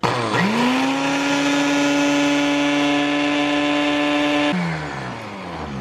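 Ninja Professional countertop blender blending aloe vera gel. The motor spins up to speed within half a second, runs as a steady high whine for about four seconds, then is switched off and winds down with a falling pitch.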